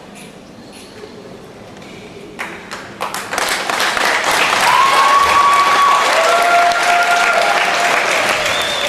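Arena crowd applauding, the clapping swelling in about three seconds in and staying loud, with a few long held tones over it.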